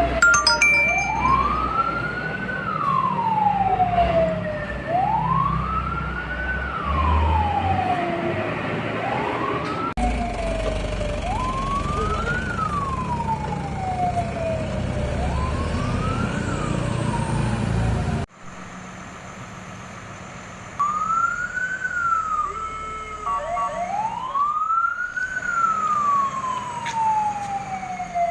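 Fire truck siren wailing, rising and falling in pitch about once every two and a half seconds over a low rumble. The sound cuts abruptly twice, and about two-thirds of the way through it drops to a faint hum for a couple of seconds before the wail returns.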